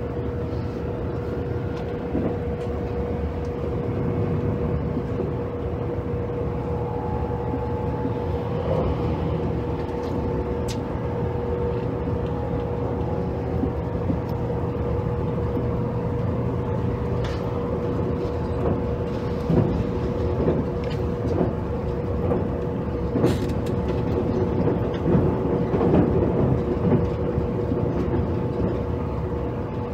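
JR Kyushu 783 series electric train running at speed, heard from inside the motor car KuMoHa 783-7: a steady rumble of wheels and motors with a constant hum-like tone. Sharp knocks and rattles from the wheels come more often in the second half.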